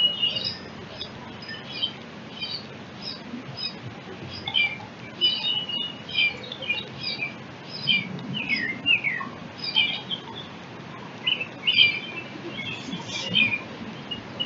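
Small birds chirping in many quick, short calls throughout, some sliding down in pitch, with the splashing of a young eastern bluebird bathing in a bird bath.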